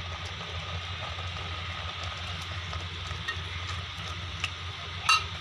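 Silicone spatula stirring butter into a simmering mixture of milk, sugar and bread in a steel pot on a gas burner, with a steady hiss underneath and faint scraping ticks. There is a brief louder knock near the end.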